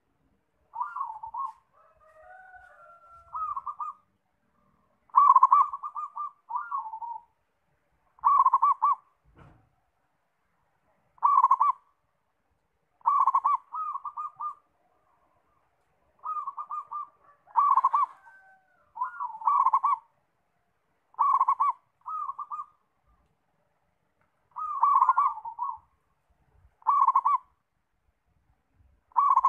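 Zebra dove (perkutut) singing: short bursts of fast, rolling coo notes, a dozen or so, each under a second, repeated every one to three seconds.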